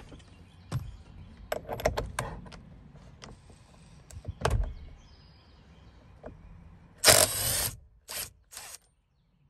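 Clicks and knocks of a socket being handled and fitted, then a drill with a 15/16 socket runs for about half a second, followed by two short bursts, backing out the steering wheel bolt.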